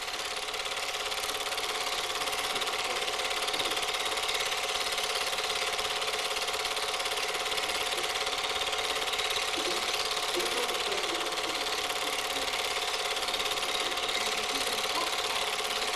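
Super 8 film projector running: a steady, rapid mechanical clatter with a constant hum, heard as projector noise on the film's soundtrack.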